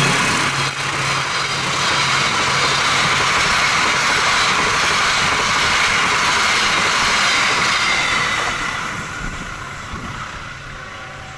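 Passenger train carriages passing at speed, making a steady wheel-on-rail noise. It fades away over the last few seconds as the train moves off.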